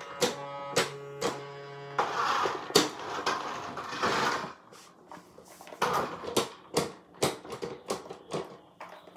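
Toy RC monster truck's small electric drive whirring in bursts while held down on a tile floor, with many plastic clicks and knocks. A steady hum in the first couple of seconds gives way to noisier spells of whirring.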